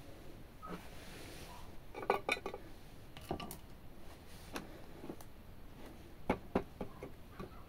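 Light clicks and clinks of a kitchen knife being picked up off the glass top of a digital bathroom scale, followed by a few separate taps of a hand on the glass platform.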